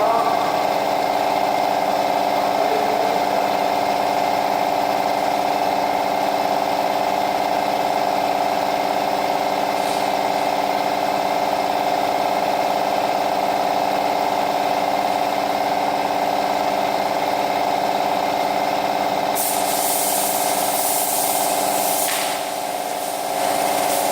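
A workshop power tool's motor runs steadily with a constant hum. About twenty seconds in, a loud airy hiss joins it.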